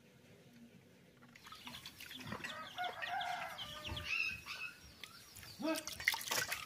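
Chickens clucking, with short bending calls that start about a second and a half in. Near the end comes water splashing as singed goat legs are rubbed clean by hand in a steel bowl.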